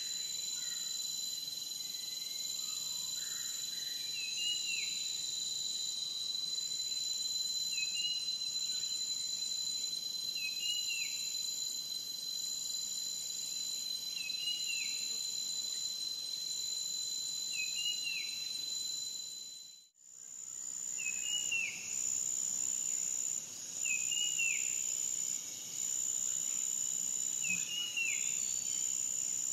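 Forest ambience: a steady high insect trill, with a bird repeating a short call about every three seconds. The sound fades out and back in about two-thirds through.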